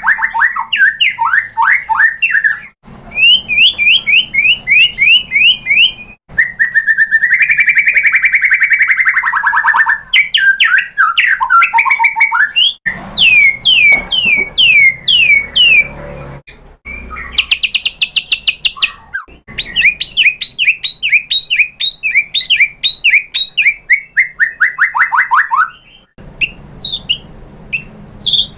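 White-rumped shama singing: long, varied phrases of rapid sweeping whistles and high trills, several notes a second, one phrase after another with brief pauses between.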